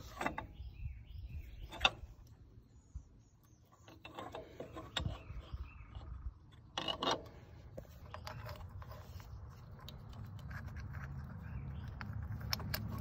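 Metal engine parts clinking and knocking as a new gasket and the water neck are handled and fitted onto a Kubota D1503-E diesel head: scattered light clicks, with the sharpest knocks about 2 s and 7 s in. A low rumble builds in the background in the second half.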